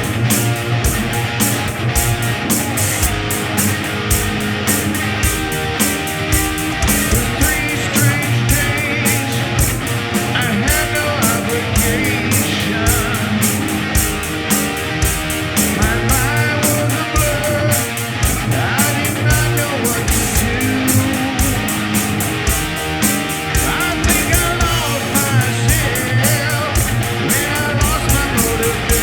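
Rock band playing live: guitar and bass over a steady, driving drum beat.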